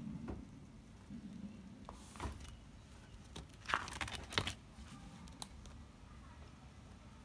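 Clear plastic pocket pages of a ring-binder stamp album rustling and crinkling as a page is turned, with a short rustle about two seconds in and a louder crinkly burst around four seconds.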